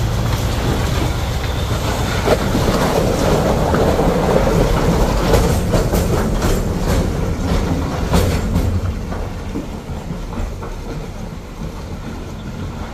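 A heavy vehicle's engine running under load, with a dense run of rattling and clanking knocks from about five to nine seconds in as it rolls over broken road surface, then growing quieter near the end.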